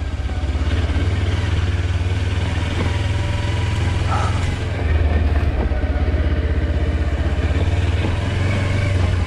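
Kawasaki Versys-X 300's parallel-twin engine running at low revs as the motorcycle rides over a rocky dirt trail: a steady low engine drone that steps up slightly about five seconds in.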